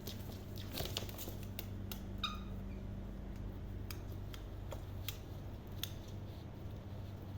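Scattered light clicks and taps, like a baby parrot's beak and claws on a toy, with one short squeak about two seconds in over a steady low hum.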